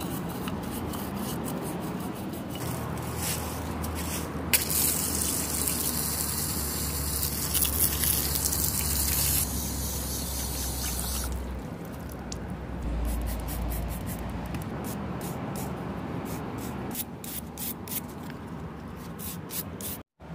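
Bristle brush scrubbing a wet actuator housing in short strokes, with water spraying and splashing over the part for several seconds from about four seconds in. Scrubbing strokes pick up again near the end.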